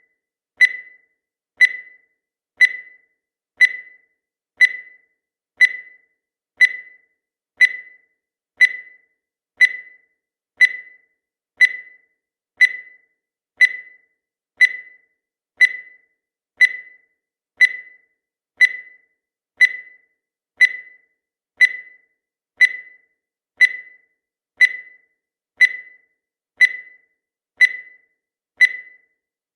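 Countdown timer sound effect: a short, high-pitched beep once every second, each one fading quickly, in a perfectly even rhythm.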